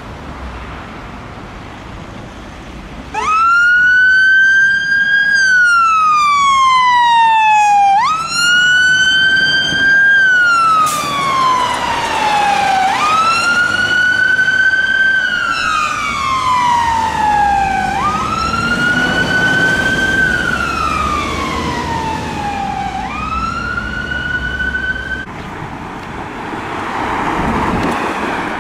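Fire engine siren on a slow wail: each cycle rises quickly, holds briefly, then falls slowly, repeating about every five seconds. It starts a few seconds in and stops shortly before the end.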